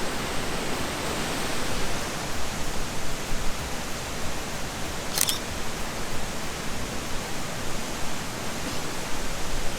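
Steady rushing of a nearby waterfall, with a single camera shutter click about five seconds in.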